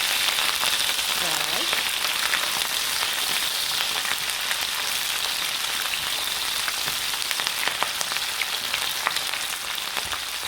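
Onion and green bell pepper sautéing in hot oil in a wok: a steady sizzling hiss with scattered small crackles.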